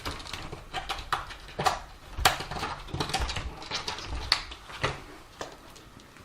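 A rapid, irregular run of clicks and knocks, the loudest about two seconds in, thinning out near the end.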